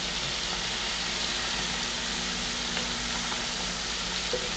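Skin-on chicken pieces sizzling steadily as they brown in an electric skillet, with a low steady hum underneath.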